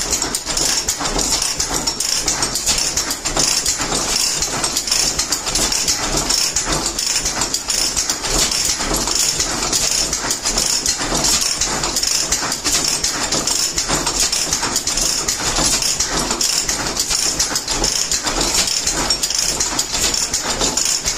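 Antique stationary gas engine running steadily, its firing and clacking igniter and valve gear making a regular beat, over a constant high hiss.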